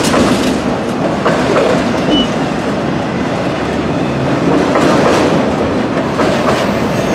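Freight cars of a long mixed-freight manifest train rolling past close by: a steady rumble with irregular clacks of wheels over rail joints, and a short high wheel squeal about two seconds in.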